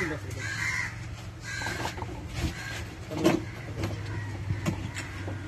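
Crows cawing a few times in the first couple of seconds, over a steady low hum, with a few light knocks about three to four and a half seconds in.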